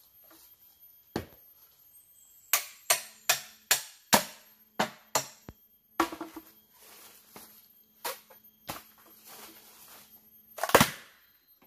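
Sharp chopping strikes on a green bamboo pole: a single blow, then a quick series of about eight, a couple more spaced out, and a heavier one near the end.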